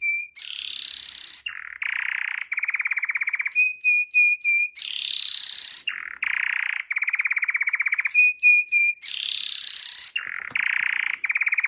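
A looped bird-call sound: a rising whistle, then buzzy trilled notes, then a few short, even chirps, the same sequence repeating identically about every four and a half seconds.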